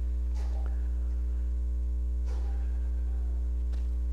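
Steady electrical mains hum, a low buzz with a ladder of overtones, with a few faint soft rustles about half a second, two seconds and nearly four seconds in.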